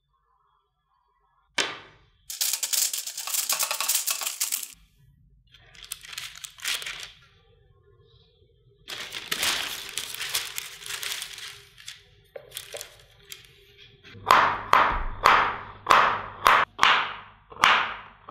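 A single sharp knock, then a plastic sheet crinkling in several stretches as it is spread over dough balls. Near the end a knife chops a bar of chocolate on a wooden board, about seven sharp chops roughly half a second apart.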